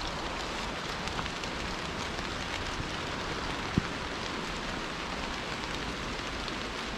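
Steady rain falling on the forest foliage, an even patter with no let-up, and one short low knock a little before four seconds in.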